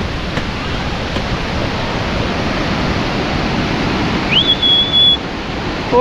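Steady rush of falling water from the Pailón del Diablo waterfall. About four seconds in, a short whistle rises and then holds one high note.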